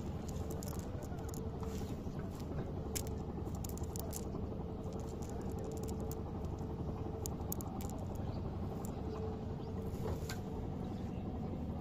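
Wet fishing net and water weeds being handled by hand, with scattered small clicks and rustles over a steady low rumble and a faint steady hum.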